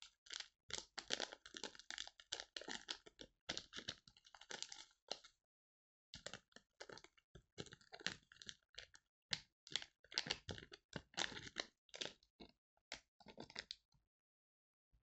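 Plastic ramen sauce and seasoning packets crinkling and crackling as they are handled over the bowl, in quick clusters of crackles with a short pause about five and a half seconds in.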